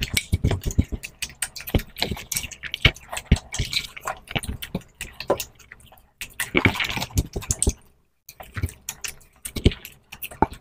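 Close-miked eating sounds of people eating rice and fish curry by hand: wet chewing, lip smacks and the squish of fingers mixing the food, a quick irregular run of sharp clicks with a short pause about eight seconds in.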